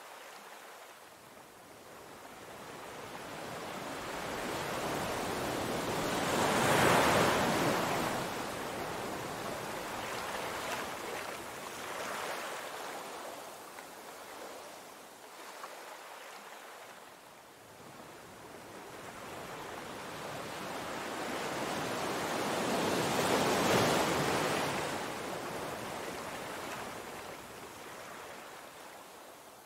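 Ocean surf washing over a rocky shore: a steady rush of water that builds to two big surges, one about seven seconds in and one about twenty-four seconds in, and eases off between them.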